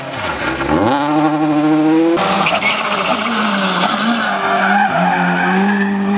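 Rally car engine dips in revs and then climbs steeply. About two seconds in, a loud hiss of sliding, skidding tyres sets in over it while the engine holds fairly steady high revs.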